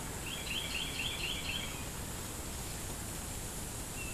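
A small bird sings a quick run of short, high chirps lasting about a second and a half, over steady outdoor background noise.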